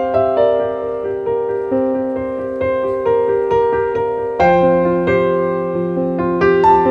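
Background piano music: single notes struck one after another over sustained lower notes, with a deeper chord coming in about four and a half seconds in.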